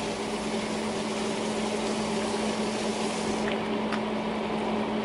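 Steady mechanical hum with a low drone running evenly throughout, with a few faint light ticks of a spice shaker being shaken over the tray.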